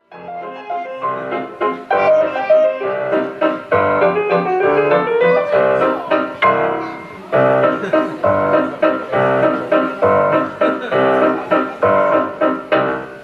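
Piano music with many quick notes, played as the soundtrack to a pantomime.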